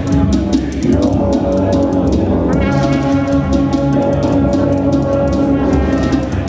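Electronic jam music driven by live-coded C++ MIDI patterns: sustained buzzy lead notes over a bass line, with a fast, steady hi-hat ticking.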